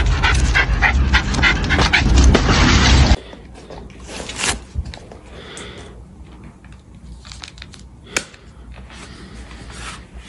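A dog panting in quick, loud, even breaths. About three seconds in the sound drops away suddenly, leaving only faint taps and rustles.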